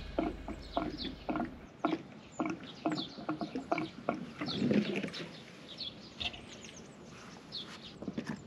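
Irregular short knocks and clicks as a hatch on the side of a caravan is worked by hand, loudest in the first few seconds. Small birds chirp lightly throughout.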